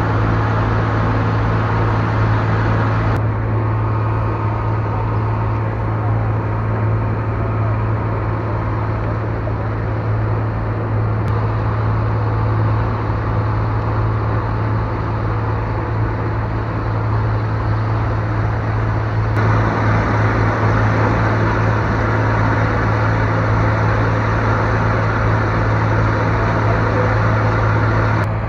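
Ferry engine running steadily with a loud low drone, over the rush of churning wake water. The hiss shifts abruptly three times.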